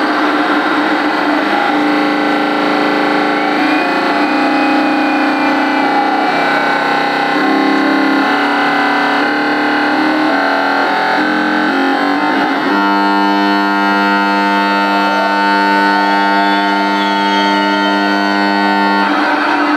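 Trance music played loud over a club sound system, in a breakdown without the kick drum: sustained synthesizer chords shifting every second or so, then settling on one held chord about thirteen seconds in, which changes again near the end.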